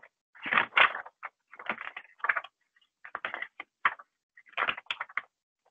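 A picture book being handled and its pages turned: a run of short paper rustles and clicks in about five clusters with brief gaps between them.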